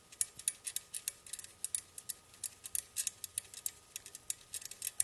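7/16 socket ratchet clicking in quick runs as it backs lock nuts off the auger blade's mounting bolts.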